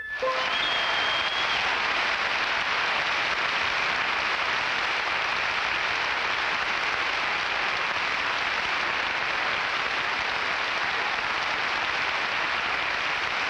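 Large football stadium crowd applauding steadily, an even wash of clapping, with a brief high tone about half a second in.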